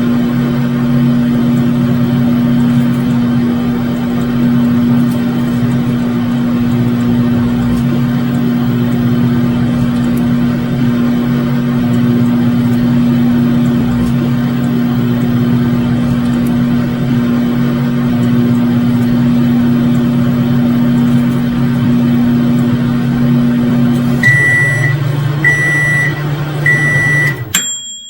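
Microwave oven running with a steady electrical hum. About 24 seconds in, the hum drops lower and the oven beeps three times, about a second apart; then the hum cuts off and a single bell ding rings out as the cycle ends.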